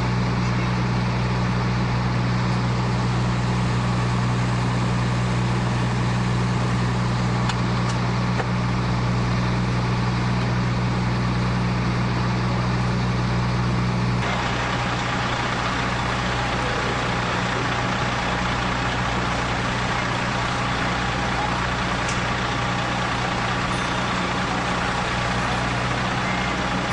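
Fire truck engine running steadily with a deep, even hum. About halfway through the sound changes abruptly: the hum drops and a brighter noise takes over.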